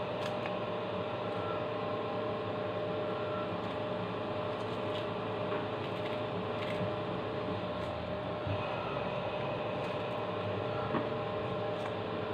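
A steady mechanical hum, like an appliance or fan running, with a few faint ticks from an orange being peeled by hand.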